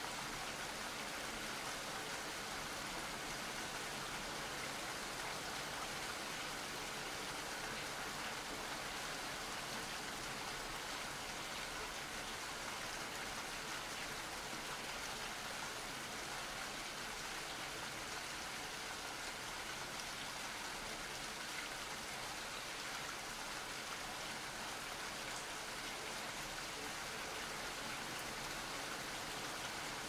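Steady rain falling, an even hiss with no thunder.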